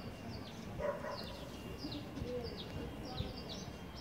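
Small birds chirping repeatedly, short high chirps that drop in pitch, two or three a second, with a brief lower call about a second in.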